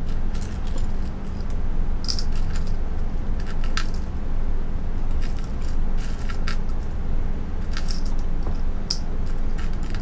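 Irregular light clicks and clinks of small hard parts being handled during a PC build, in scattered clusters, over a steady low hum.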